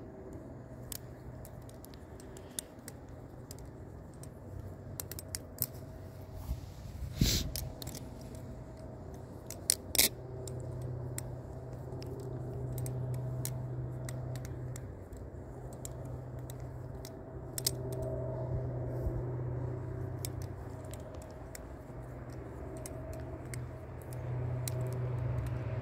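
Butterfly knife (balisong) spun through repeated rollovers: light metallic clicks and rattles of the handles swinging on their pivots around the blade, with two sharper clacks about seven and ten seconds in.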